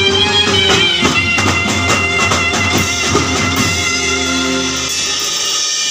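Live banjo party band playing: a held melody line on the keyboards over drum kit and hand drums. The drumming stops about two-thirds of the way in while sustained notes ring on.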